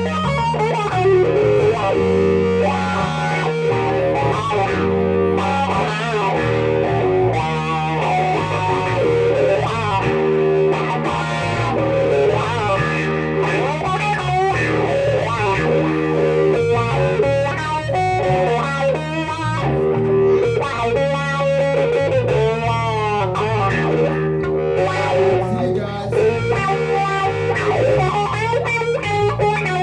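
Instrumental blues-rock played live on electric guitar and electric bass: the guitar plays a lead line full of bent, wavering notes over a steady bass line.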